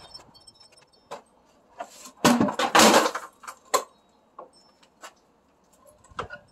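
Workshop handling noise of wood and metal hardware: scattered clicks and knocks, with a loud rattling clatter lasting about a second, some two seconds in.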